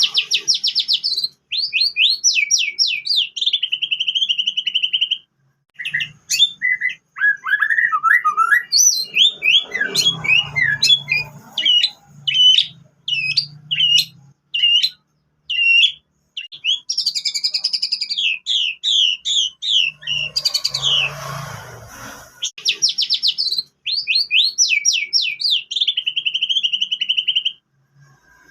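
White-rumped shama singing a song filled with canary-style imitations: phrases of fast repeated sweeping notes and rapid trills, some ending in a held buzzy note, with short pauses between phrases. Two short bursts of noise cut in, about ten seconds in and again near twenty-one seconds.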